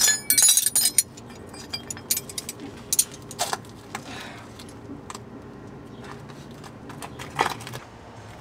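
Metal wrenches clinking and jangling together as they are picked up off the ground, followed by a few scattered knocks and scuffs.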